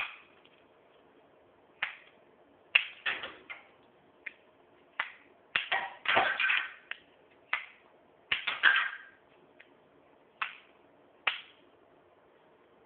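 Irregular sharp snaps and clatters, about a dozen, the loudest cluster around the middle: a Lego semi-automatic gun firing small plastic projectiles that strike Lego brick targets and the hard floor.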